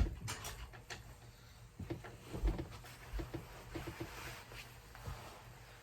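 Soft rustling of a jacket's fabric being handled and pulled on, with scattered small clicks and a few soft thumps, the firmest about halfway through.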